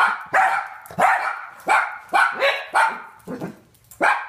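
Several dachshunds barking repeatedly, about ten sharp barks at two to three a second, in alarm at fireworks going off.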